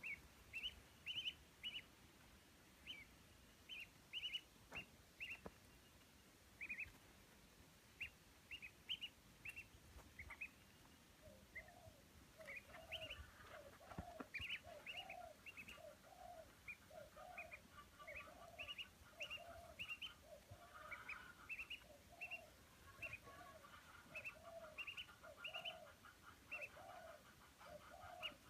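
Indian Runner ducklings peeping in short, high cheeps, singly and in quick runs. From about twelve seconds in, a lower call joins them and repeats roughly once a second.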